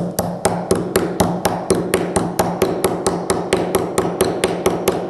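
Quick, even hammer taps, about five a second, driving the steel hoop of a Japanese oire nomi chisel down onto its wooden handle.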